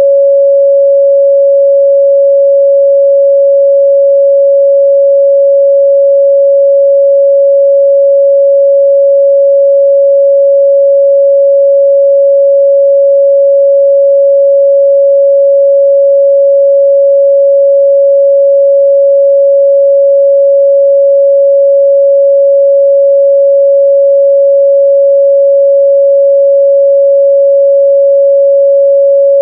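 Pure 557 Hz sine-wave test tone held at a constant loud level.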